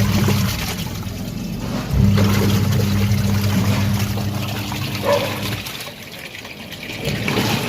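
Samsung semi-automatic washing machine's wash motor humming as it churns water in the tub. It stops about half a second in, starts again about two seconds in and stops again about two seconds before the end, with water sloshing and trickling throughout. The machine runs quietly on its newly replaced gearbox, without the noise it made before the repair.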